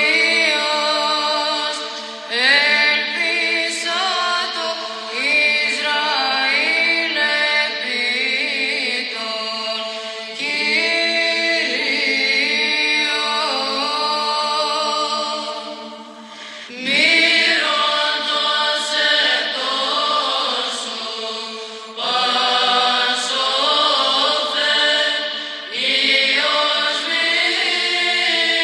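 Choral chant: several voices sing bending, melismatic phrases over a steady held low note. The singing dips briefly about sixteen seconds in before the next phrase starts.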